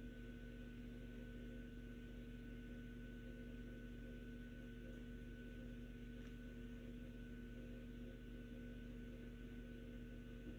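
Faint steady hum made of a few constant tones over low background noise: room tone.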